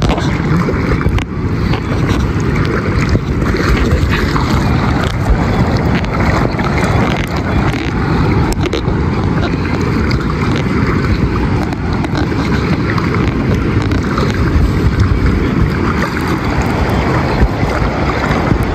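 Wind blowing across the microphone over open sea water: a loud, steady, deep rumble with gusty flutter.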